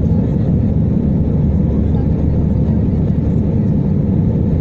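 Steady low cabin noise of an Airbus A320-family airliner's jet engines and slipstream, heard from inside the passenger cabin as it climbs after takeoff.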